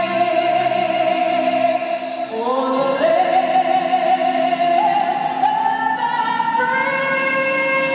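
Recorded song with a female singer holding long notes over instrumental backing; the melody climbs to higher sustained notes about a third of the way in.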